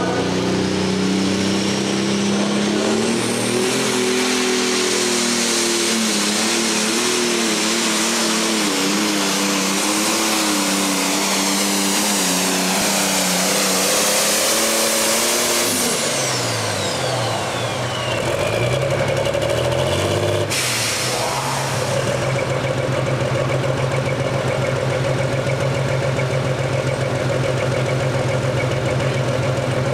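Heavy Super Stock pulling tractor's turbocharged diesel engine running flat out under the load of the sled, with a high turbo whine over it. About halfway through, the engine is throttled back and the whine falls away, a loud hiss cuts off suddenly, and the engine settles to a steady idle for the last third.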